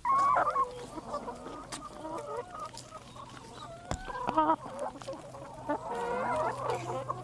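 A flock of hens clucking, many short calls overlapping one another throughout.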